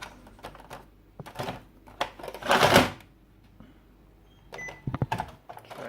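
Clicks and a short clatter from handling an Epson WorkForce WF-3620 inkjet printer after paper is loaded, then a brief electronic beep with more clicks about four and a half seconds in.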